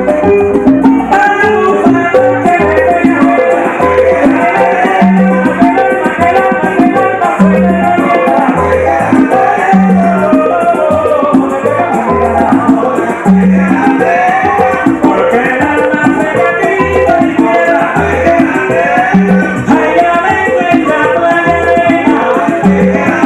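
Latin dance music played from a vinyl record, with a steady bass line and rattling shaker percussion.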